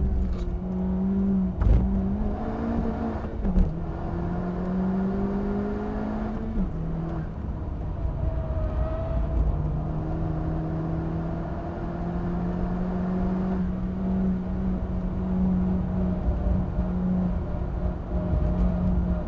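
Honda Civic Type R FK8's 2.0-litre turbocharged four-cylinder engine pulling hard on track, heard from inside the cabin. The engine note drops suddenly twice in the first seven seconds, then climbs slowly as the car gathers speed.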